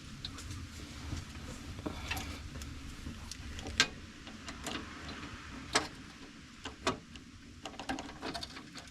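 Scattered, irregular light metallic clicks and taps from hand work fitting a heater cable and its barrel nut to a VW heater box control lever, a few sharper clicks standing out in the middle.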